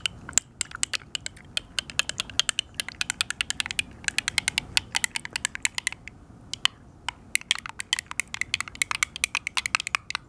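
Metal spoon stirring yogurt in a small glass jar, clicking rapidly and irregularly against the glass several times a second as the Nutella at the bottom is blended in, with a brief lull about two-thirds of the way through.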